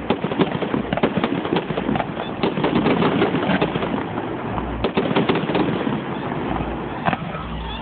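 Fireworks going off: dense, rapid crackling pops over a constant rumble, with deeper booms about five seconds in and again near the end. Heard through a phone's microphone, which cuts off the highest sounds.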